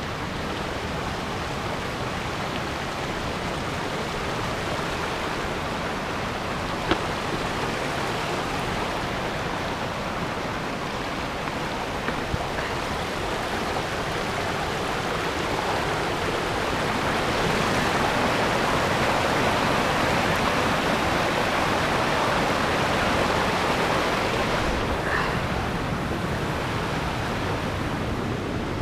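Kivach waterfall on the Suna River: the steady rush of falling water, which grows louder for several seconds in the middle. A single sharp click about seven seconds in.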